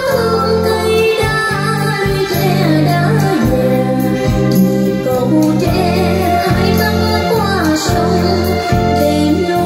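Music with a singing voice over sustained low chords, played back through a pair of JBL TLX 16 three-way loudspeakers with 20 cm woofers.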